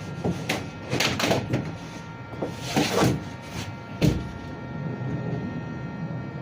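Knocks and clatter of metal panels being worked loose, with one heavy thump about four seconds in: interior teardown of a van's cabin partition.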